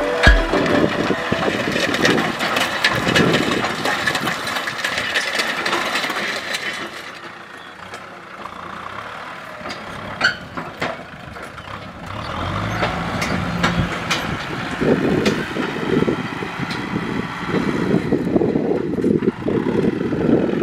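Kubota M6040 tractor's diesel engine running under load while pulling a disc plough through the soil, with scattered sharp clicks and knocks. It grows quieter for a few seconds in the middle and comes back louder near the end.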